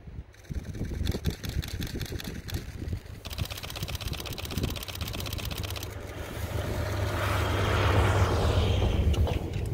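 Russell snowplough train with its DE15 diesel locomotive running as it approaches, a steady low engine rumble under it. The hiss and rush of snow being thrown aside by the plough grows louder from about six seconds in, loudest as it passes close near the end.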